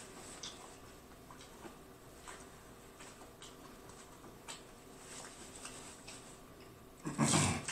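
Close-up chewing of lobster meat: soft wet mouth clicks and smacks scattered through, with one louder, breathy mouth sound lasting about half a second near the end.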